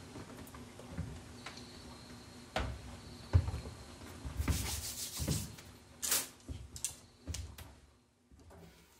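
Quiet handling noise: rubbing and rustling with scattered light knocks and clicks, as a cup is put down and vibraphone mallets are picked up.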